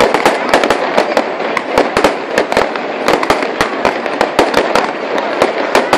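Fireworks display: a dense, rapid run of bangs and crackling from shells and firecrackers bursting, several reports a second.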